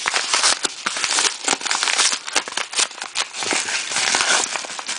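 Yellow bubble-padded mailer crinkling and crackling as it is handled and opened: a dense, continuous run of crisp crackles and rustles.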